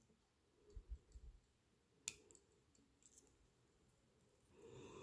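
Faint clicks of chain-nose pliers against copper wire as a coiled wire loop is straightened: a few soft clicks about a second in and one sharper click about two seconds in.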